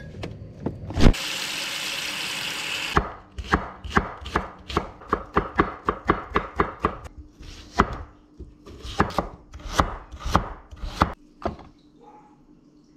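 A loud thud about a second in, then a couple of seconds of steady hiss. After that, a kitchen knife chops garlic on a wooden chopping board: quick even knocks, about three a second, that stop about two seconds before the end.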